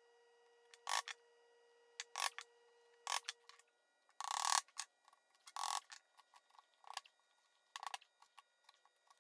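Short scraping strokes of a hand tool on wood, a dozen or so at irregular intervals, the longest and loudest about four and five and a half seconds in. A faint steady hum stops about four seconds in.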